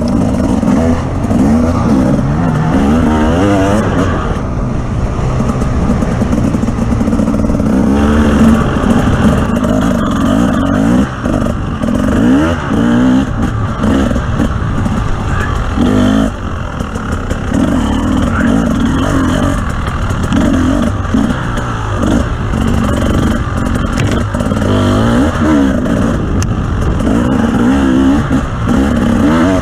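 Off-road vehicle's engine running hard, revving up and down repeatedly as it is driven over rough terrain.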